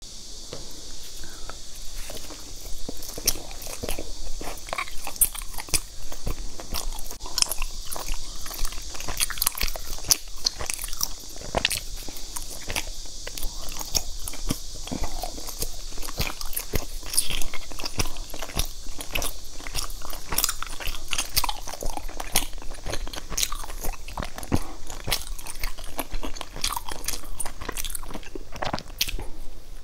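Close-miked eating: a person biting and chewing soft, sticky glutinous rice pastries, with many small mouth clicks and smacks throughout. A steady high hiss lies underneath.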